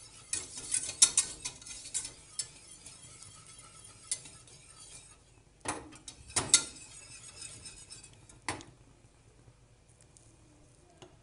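Wire whisk scraping and clicking against a steel saucepan, whisking a bubbling butter-and-flour roux. The strokes come irregularly with a few sharp clanks, then stop about eight and a half seconds in.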